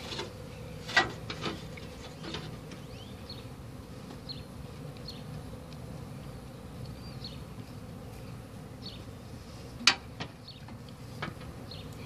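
Honey bees buzzing steadily around a colony whose comb is being cut out, with a few sharp knocks, the loudest near the end.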